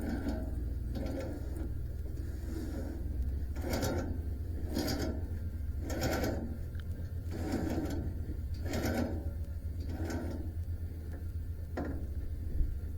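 Rhythmic mechanical scraping or rasping strokes, about one a second, over a steady low hum.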